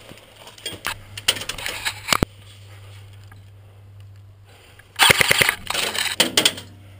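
Airsoft gun fire: a few sharp cracks in the first two seconds, a lull, then a quick burst of shots about five seconds in.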